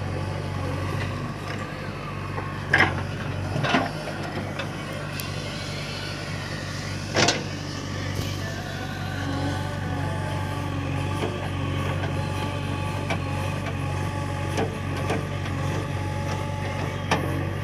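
JCB 3DX backhoe loader's diesel engine running steadily while its backhoe arm digs and dumps soil. Three sharp knocks stand out, about three seconds in, just before four seconds, and about seven seconds in.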